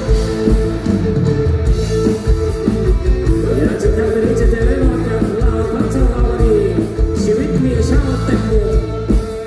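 A man singing into a microphone over amplified rock-pop band music with a steady drum beat, heard through the stage PA.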